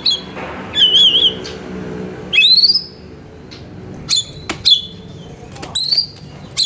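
Oriental magpie-robin (kacer) singing: loud whistled phrases of sharp rising notes and short wavering trills, one after another with brief gaps.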